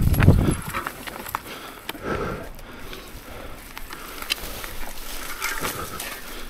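Mountain bike rolling down a rocky dirt trail: tyre noise and irregular rattling clicks from the bike, with a loud rush of wind on the microphone that dies away about half a second in.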